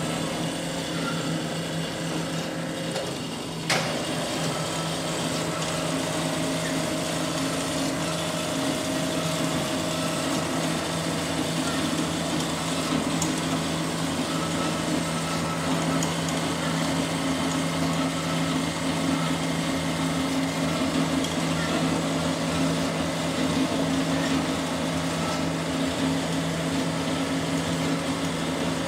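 Amada HA-250 automatic horizontal bandsaw running with a steady mechanical hum. There is a sharp click about four seconds in, after which it runs slightly louder.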